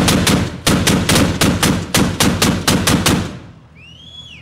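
Heavy automatic weapon firing one long burst of evenly spaced, loud shots, about six a second, that stops a little past three seconds in.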